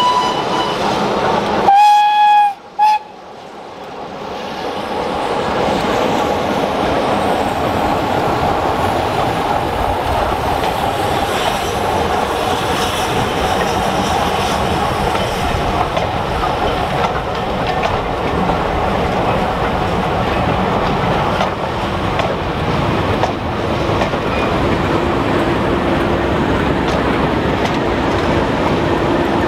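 A train horn sounds about two seconds in, one long note and then a short one. Then a diesel-hauled train of coaches rolls past close by, a steady loud rumble with wheels clicking over the rail joints.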